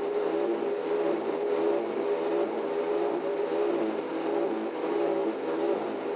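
Saw-Ray magnetic saw running steadily, its motor giving a steady whine as the circular blade is fed forward to cut a welded-on steel lug off flush with the plate.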